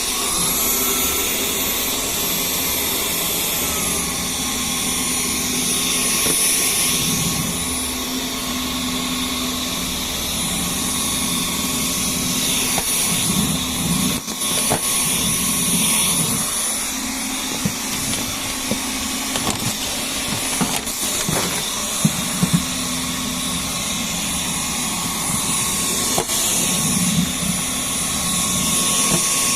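Dyson V10 cordless stick vacuum running steadily with a high motor whine. The whine rises in pitch in the first few seconds, then drops back to its earlier pitch. Scattered short knocks and clicks come through as it cleans.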